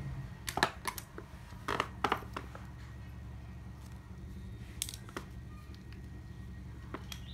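Scattered light clicks and taps of fishing reels being handled, a cluster in the first two seconds and a few more later, over a steady low background hum.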